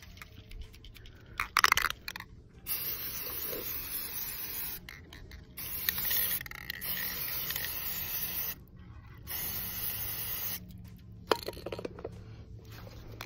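Aerosol spray paint can hissing in three long bursts of a few seconds each, each starting and stopping sharply, as paint is sprayed onto the surface of a bucket of water for hydro dipping. A short loud clatter comes about a second and a half in, before the first burst.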